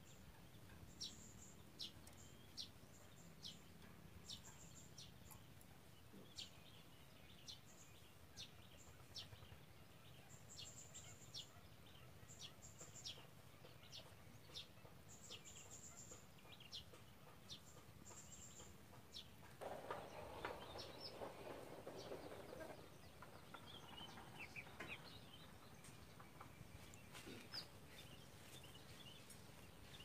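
Faint, thin, high chirps from a kolibri ninja sunbird, repeating about one to two a second through the first two-thirds. A rooster crows once, about two-thirds of the way through, and a few more chirps follow.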